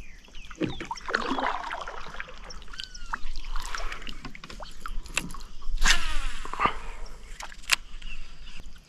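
Birds chirping and calling, with water sloshing around a kayak and a few sharp clicks.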